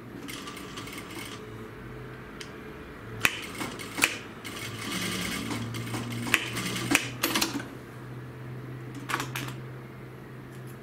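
Juki industrial sewing machine stitching in two short runs, the second about halfway through and a few seconds long, over a steady low motor hum. A few sharp clicks fall between and during the runs.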